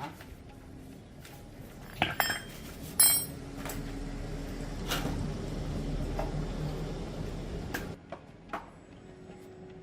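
Metal parts clinking and knocking against a hard surface several times, one strike ringing briefly. A low steady hum sits under the knocks for a few seconds.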